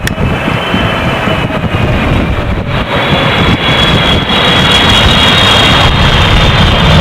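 Jet airliner's engines running loudly as it passes, a deep rumble with a high whine that comes in about three seconds in and grows louder toward the end.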